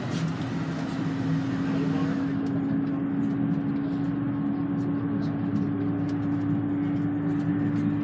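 Bus running at highway speed, heard from inside the cabin: steady engine and road noise with a whine held at one pitch, and light clicking rattles.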